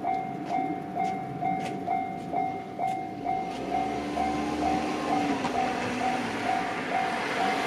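Japanese level crossing alarm ringing at about two strokes a second as a JR Tokaido Line train approaches, the rumble of the train building from about halfway through.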